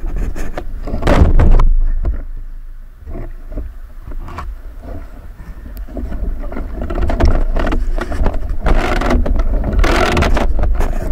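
Sea water sloshing and splashing around the camera over a steady low rumble, with a surge of splashing about a second in and another, longer one near the end.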